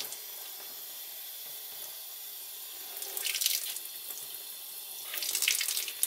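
Tap water pouring from a laundry-tub faucet onto a dryer lint screen and running through it into the tub, a steady splashing hiss that gets louder for a moment about three seconds in and again near the end. This is a check for a lint screen clogged by fabric-softener-sheet residue.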